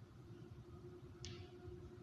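Near silence: room tone with a low steady hum and one brief, faint hiss about a second in.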